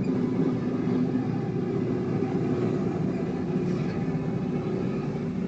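Steady drone of railway machinery running, a low hum with a few held tones and no change in pace.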